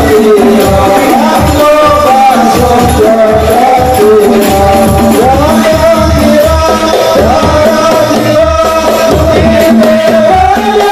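Hadroh ensemble performing sholawat: men's voices singing a gliding, drawn-out melody over a steady beat of hand-struck frame drums, with low drum strokes a few times a second.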